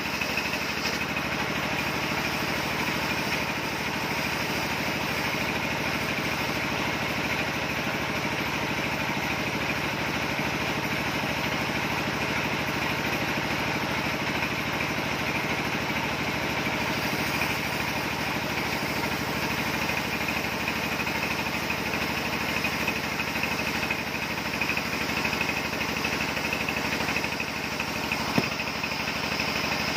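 Sawmill circular saw rig and its drive engine running steadily, with a continuous whine from the saw. A single short knock comes near the end.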